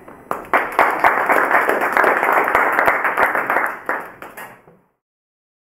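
Audience applauding, many hands clapping together. It starts about a third of a second in and dies away after about four seconds.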